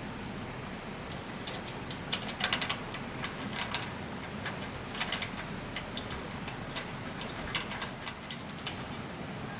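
Irregular light clicks and clinks in small clusters, over a steady low background hiss.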